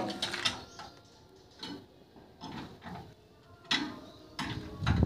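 Scattered metal clicks and clunks as the steel housing and outlet of a branch-chopping machine are handled, with a heavier low thud near the end.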